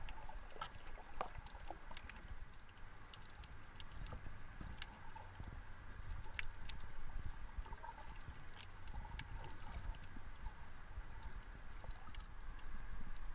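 Underwater sound picked up by a camera in the sea: a steady, muffled low rumble of moving water with scattered sharp clicks and crackles throughout.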